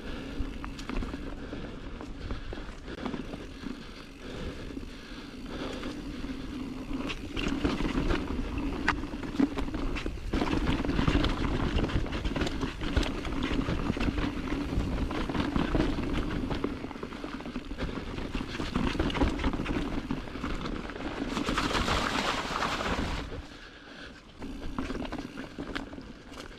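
Mountain bike rolling over rough trail: steady tyre noise with constant clicks and rattles from the bike over rocks and roots. A louder rushing hiss rises for about two seconds near the end.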